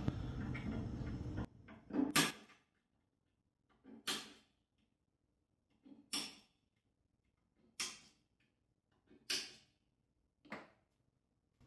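A center punch striking steel about six times, one sharp metallic hit every second and a half to two seconds, marking the spots where holes will be drilled.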